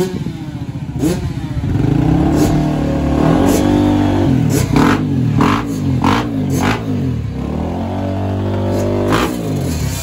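Small two-stroke youth motocross bike running in place, its engine revved up and down again and again with several quick throttle blips in between.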